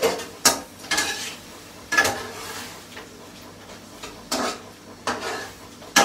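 A slotted metal spatula scraping and clanking against a nonstick wok while stir-frying shrimp in sauce. It makes a sharp stroke about every half second to second, with a pause of about two seconds in the middle, over a faint sizzle from the pan.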